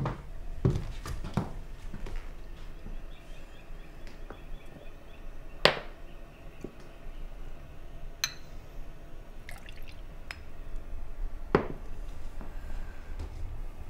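Glassware on a stone kitchen countertop: a few knocks near the start, then sharp glass clinks as shot glasses are set down and handled, the loudest about six seconds in. Liquor trickles from a glass carafe into a shot glass.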